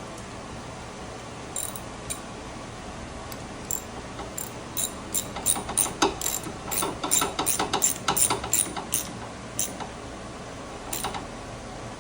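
Metal hand tools and hardware clicking and clinking as they are handled, in an irregular run of sharp clicks that is busiest from about four to ten seconds in.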